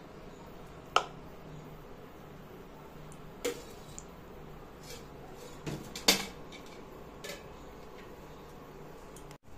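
Metal kitchenware being handled and set down: about five short, sharp clinks and knocks, the loudest about six seconds in.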